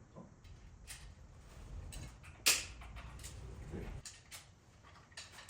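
Scattered knocks and clicks in a woodworking shop, with one sharp crack about two and a half seconds in, over a faint low hum.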